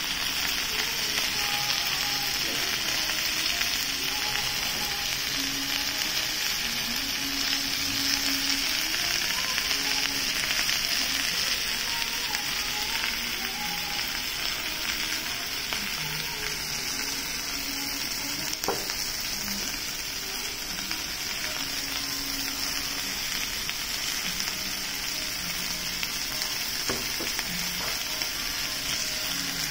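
Lamb and vegetables sizzling steadily in a domed cast-iron Genghis Khan (jingisukan) grill pan heated on a tabletop gas burner.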